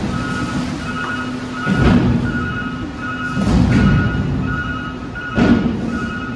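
Garbage truck ejecting its load into a transfer-station pit: trash slides out and drops in heavy, rumbling surges about two seconds in, again around four seconds, and in a sharp rush near five and a half seconds. Under this runs the truck's steady mechanical hum and a steadily repeating beep of its warning alarm.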